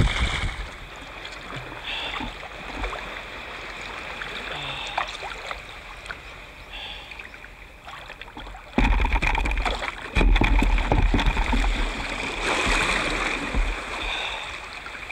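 Sea kayak paddle strokes splashing and water sloshing around the hull. About nine seconds in, a much louder low rumble sets in over the water sound.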